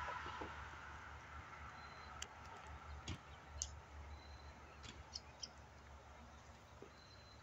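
Faint outdoor ambience: a distant noise fades away over the first couple of seconds, then scattered sharp ticks and brief high chirps sound over a quiet background.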